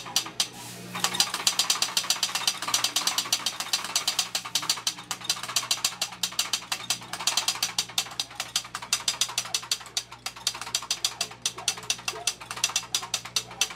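Hand-cranked Colt-built .45 calibre Gatling gun, its crank turning the barrel cluster while the locks cycle in a rapid, even run of metallic clicks. The clicking starts about a second in.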